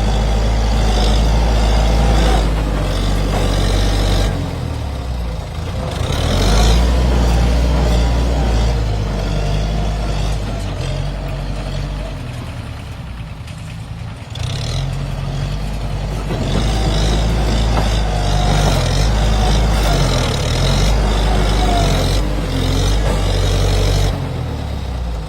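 Kubota M7040SU tractor's diesel engine running, its note rising and falling with load. The engine eases off for a couple of seconds about halfway through, then picks up again.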